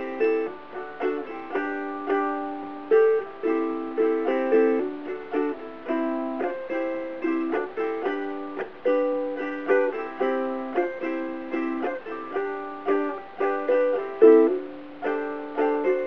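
Covered Bridge tenor ukulele of redwood and myrtle played unaccompanied in a classic-rock style: chords struck sharply every half second or so, each ringing out and fading before the next.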